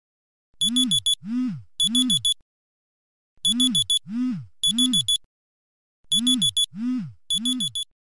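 Smartphone alarm ringing: runs of four rapid high electronic beeps with low swooping tones under and between them, the pattern repeating three times about every three seconds.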